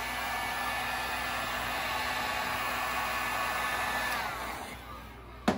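Electric heat gun blowing hot air onto a stiff rubber live well hose to soften it so it will come off its fitting: a steady fan rush with a faint whine. It is switched off about four seconds in, and the whine falls as the fan winds down. A sharp double knock follows near the end.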